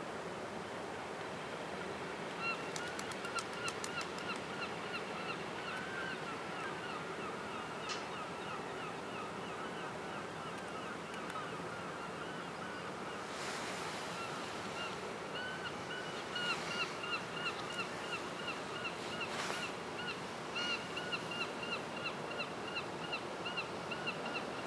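A bird calling over and over in rapid short notes, several a second, starting a couple of seconds in, over a steady background hiss of wind and water.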